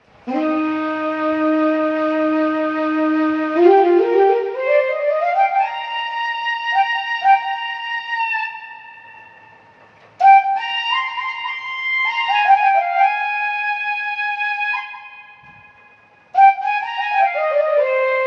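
Flute tone of a Casio CTX-9000IN electronic keyboard playing a melody: a long held low note that climbs in a run of rising notes and fades away, then two more phrases starting about ten and sixteen seconds in.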